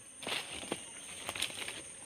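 Irregular crackling and rustling of sticks and dry leaves, with several sharp snaps, over a steady high-pitched insect drone.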